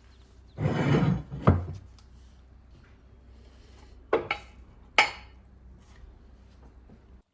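Hard metal objects handled and knocked together: a short rattling scrape, a sharp knock, then a few sharp clinks, the last one ringing briefly.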